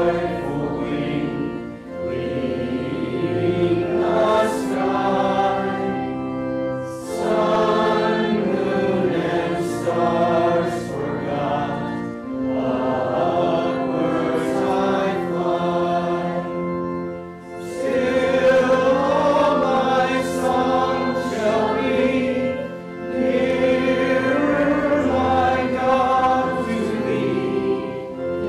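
Congregation singing a hymn over held instrumental chords, in phrases of about five seconds with short breaks between them.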